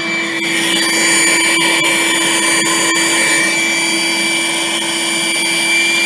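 Vacuum cleaner running steadily with a constant motor whine, scattered with small ticks.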